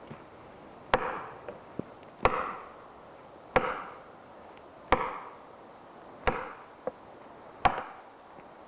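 Six heavy axe blows on wood, evenly spaced about 1.3 seconds apart, each with a short ringing tail.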